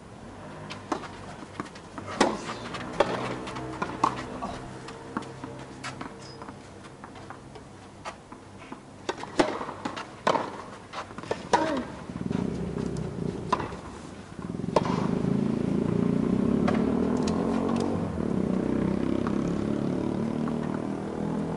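Tennis ball being struck by rackets and bouncing during a rally, heard as sharp pops spaced about a second apart. A steady engine hum comes in past the middle and grows louder near the end.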